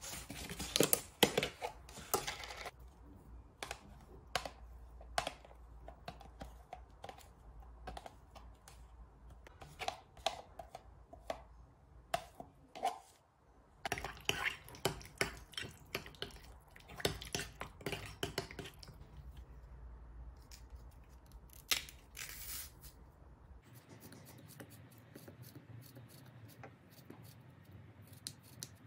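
Scattered light clicks, taps and scrapes of small objects being handled, coming in uneven clusters over a low room hum.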